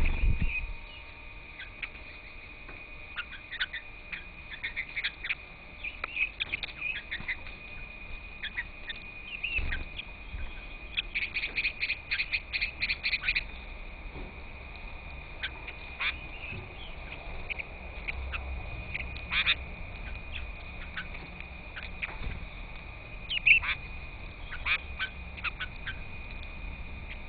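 Wild birds giving short, scattered harsh calls, with a quick run of about eight notes near the middle, over a steady high-pitched drone. A low knock comes right at the start.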